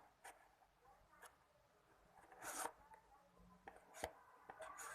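Faint handling of a product box and its packaging: several light clicks and taps, with a brief rustle about halfway through.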